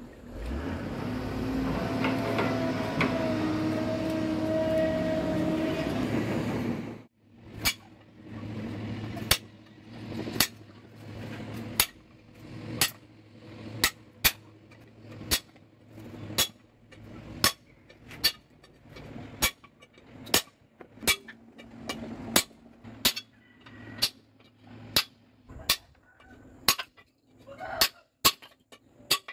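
A steady mechanical noise with a held hum runs for about the first seven seconds, then cuts off abruptly. A hammer then strikes a long steel punch about once a second, knocking the old lining and its rivets off a Hino truck drum-brake shoe; each blow gives a sharp metallic clank.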